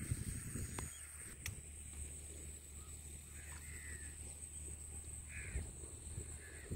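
A crow cawing faintly, three short calls in the second half, over a steady low wind rumble on the microphone. Two faint ticks come about a second in.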